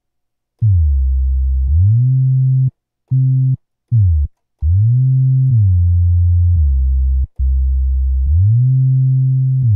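Synth bass from a Native Instruments Massive patch, playing a run of deep notes with glide turned on: notes slide up into pitch and bend from one note to the next, with a few short gaps between them.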